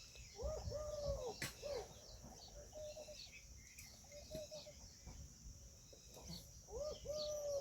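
Peahen (female Indian peafowl) calling: a group of short arching honks about half a second in, and another group near the end. Small birds chirp and insects buzz steadily behind.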